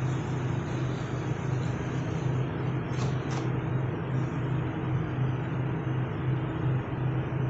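A steady low hum with an even hiss, like a running machine or motor, unchanging throughout, with two faint clicks about three seconds in.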